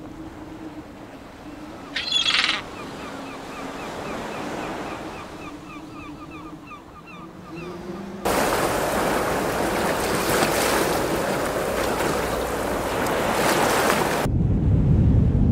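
Wind and sea ambience: a loud rush of wind and surf cuts in suddenly about eight seconds in and gives way near the end to a deep low rumble of wind and sea. Before it, a quieter stretch with a low steady hum, one sharp bright sound about two seconds in and a run of faint repeated chirps.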